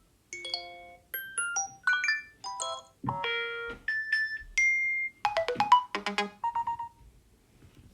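A quick run of short Apple iOS alert tones playing one after another from an iPad's speaker. Each is a different brief electronic chime or little melodic figure, and the run stops about seven seconds in.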